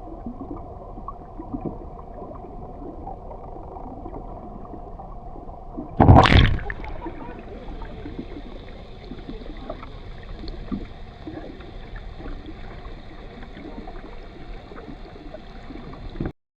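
Muffled water gurgling and sloshing, with one loud splash-like burst about six seconds in. The sound cuts off abruptly near the end.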